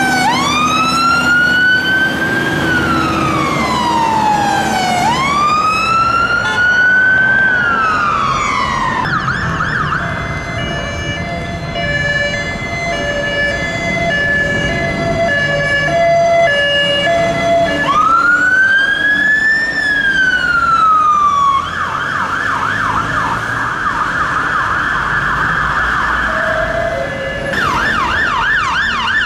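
UK fire engine sirens. First a slow wail that rises and falls about every two and a half seconds, then a two-tone pattern of alternating steady notes. The wail returns briefly, and from about two-thirds of the way through it switches to a fast yelp of quick repeated sweeps.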